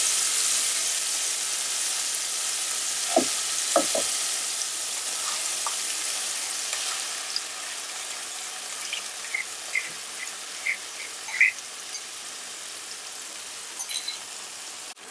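Ground urad dal paste sizzling in hot oil in a pan, loud at first and gradually dying down as the oil takes the paste. There are two sharp knocks about three and four seconds in, and a few faint short squeaks later.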